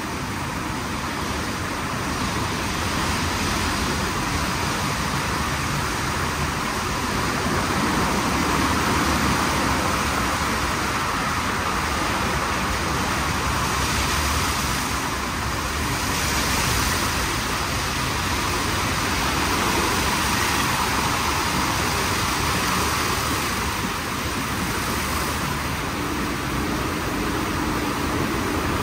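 WashTec SoftCare² Takt rollover car wash gantry running its program: a steady rushing noise with slow swells in level.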